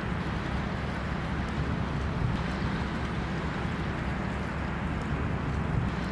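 Steady rumble and rush of a boat under way: engine running with water and wind noise.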